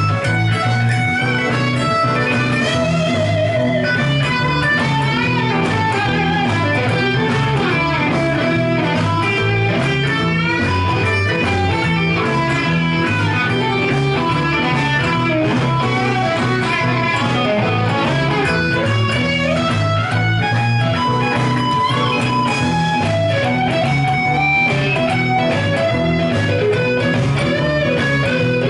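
Electric guitar, a sunburst Stratocaster-style, played through an Egnater amp, improvising blues lead lines of single-note runs with string bends.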